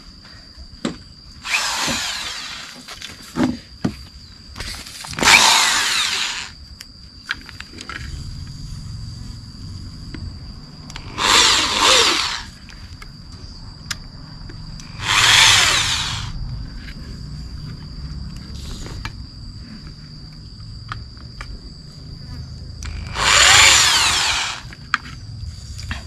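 Small corded electric hand drill boring a hole in a board, run in five short bursts of one to two seconds each.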